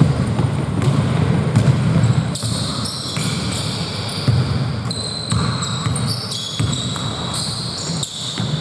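Basketball game on a court: the ball bouncing repeatedly, with many short high squeaks, most of them in the second half.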